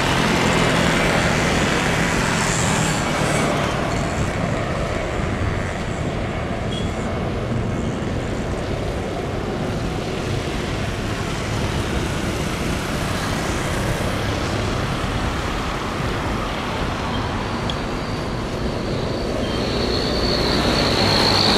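Airbus A320 airliner's jet engines at takeoff thrust, a steady noise with a low hum heard at a distance. Near the end a high whine comes in and the sound grows louder.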